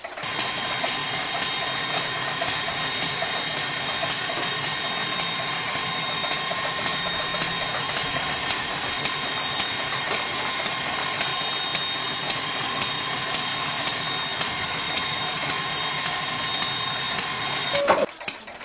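Small DC gear motor of a toy borewell drilling rig running steadily, turning its drill rod, with a constant high whine. It is switched off with a toggle-switch click near the end.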